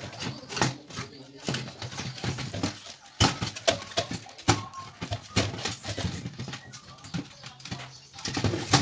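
Plastic housing of a Philco boombox clicking and knocking as its cabinet halves are handled and pulled apart, with irregular sharp clicks and taps throughout.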